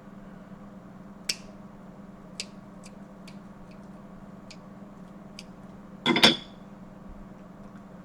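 Snow crab legs being handled and eaten: scattered sharp clicks of shell, then a short, louder crackling crunch about six seconds in as a shell is cracked.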